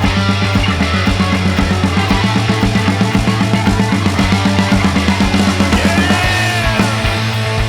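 Instrumental rock music with a driving drum beat and guitar, with no singing. About six seconds in the beat eases and a few falling gliding notes come in.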